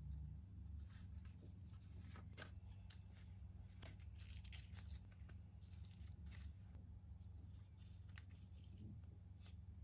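Faint, scattered clicks and rustling of kitchen handling over a steady low hum.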